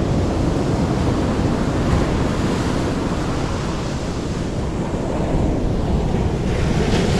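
Surf washing up a sand beach, a steady wash of breaking waves, with wind noise on the microphone.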